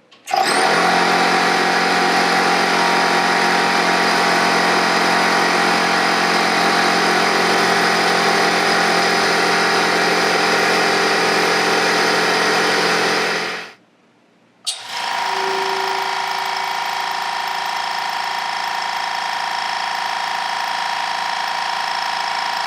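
Air compressors running in two stretches. The first, louder run starts at once and stops after about 13 seconds. After a second of near silence, a second run starts with a sharp click and runs steadily, a few decibels quieter, with a lower whine.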